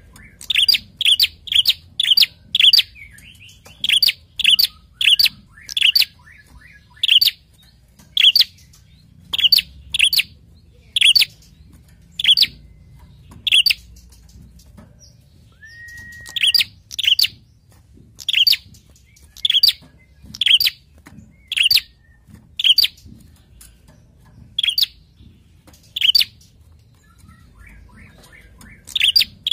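Prenjak calling: a long series of short, sharp, high chips, several a second at first, then about one a second, with a brief steady whistle about halfway through.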